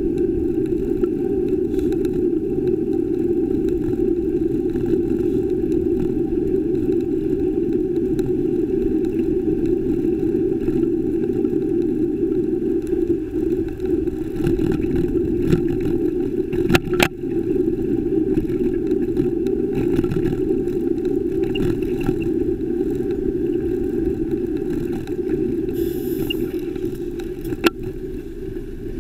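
Steady low rumble of wind and road noise picked up by a bicycle-mounted black box camera while riding, with two sharp knocks, one about seventeen seconds in and one near the end.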